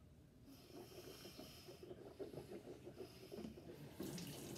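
Kitchen tap turned on about four seconds in, water running in a steady hiss. Before that, only faint scattered noises.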